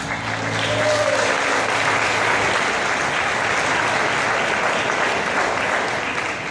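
Theatre audience applauding steadily at the end of a musical number.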